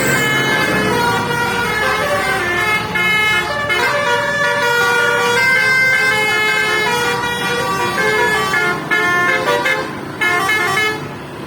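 Basuri-style musical bus horn playing a long tune of short stepped notes, several pitches sounding together, stopping near the end.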